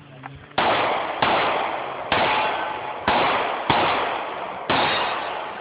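Six gunshots fired in a quick string, about one every half-second to second, each followed by a long echoing decay. This is a shooter's timed string of fire after the stand-by command.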